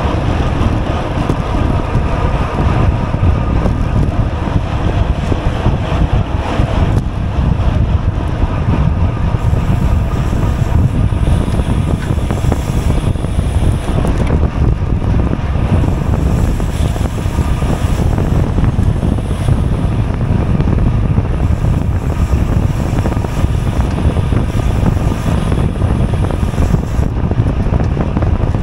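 Wind buffeting an action camera's microphone on a racing bicycle at speed: a loud, steady low rumble.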